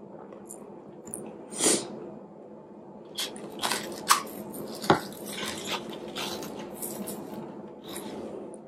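Close-miked mouth and hand eating sounds of fufu with okra soup: a short slurp about two seconds in, then a string of sharp wet smacks and clicks from chewing and sticky fingers.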